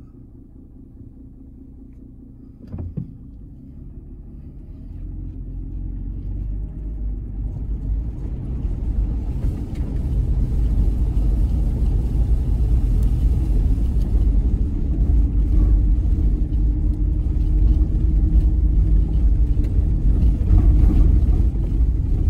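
Vehicle driving on a rough dirt road, heard from inside the cabin: low engine and tyre rumble that grows steadily louder over the first ten seconds as it picks up speed, then holds steady. A brief thump about three seconds in.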